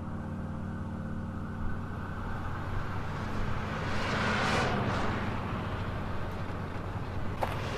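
Road traffic: a steady low engine hum with the noise of a vehicle swelling past about four to five seconds in, and a couple of sharp clicks near the end.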